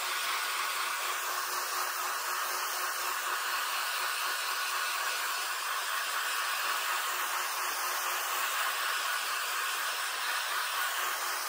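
A steady rushing hiss of blown air from a blower-type tool, even throughout, with a faint steady hum beneath.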